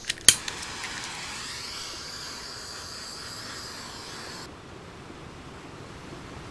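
Handheld torch: two sharp clicks as it is lit, then the flame hissing steadily for about four seconds before it cuts off suddenly, leaving a fainter hiss.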